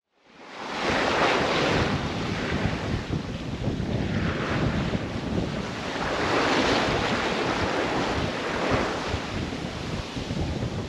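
Sea water rushing and splashing along the hull of a sailboat heeled under sail, surging louder every few seconds as waves pass, with wind buffeting the microphone. The sound fades in over the first second.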